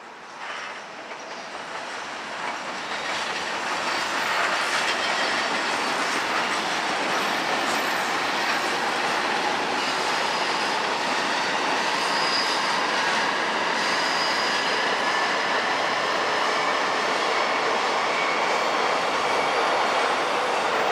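E259 series Narita Express electric train pulling out, its running noise building over the first few seconds and then holding steady, with faint high-pitched tones over it.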